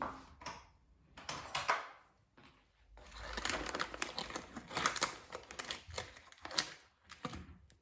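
Crinkling and rustling of a bag of brown sugar being handled: a short burst about a second and a half in, then a longer stretch of crackly rustling in the second half.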